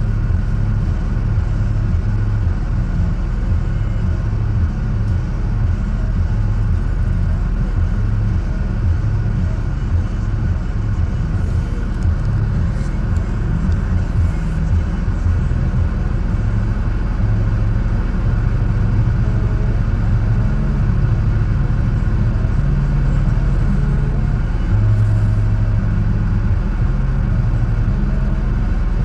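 Truck engine running under load in four-wheel-drive low, a steady low rumble, while it tows a stuck vehicle through snow.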